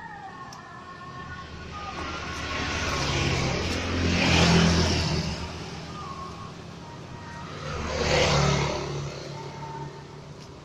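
Road traffic passing close by: two motor vehicles go past one after another, the first loudest about four and a half seconds in, the second about eight seconds in, each swelling and fading with engine rumble.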